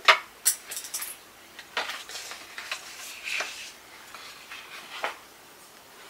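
Handling noise: a scattered series of short clicks, taps and rustles as things are picked up and moved, the sharpest near the start.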